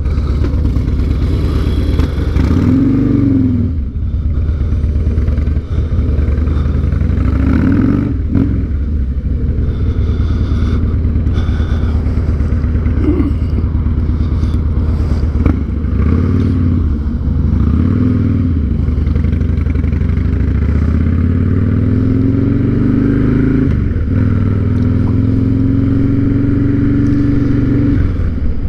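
Harley-Davidson Night Train's V-twin engine pulling away and accelerating through the gears, its pitch climbing and dropping back several times with the shifts, then holding steady at cruising speed near the end.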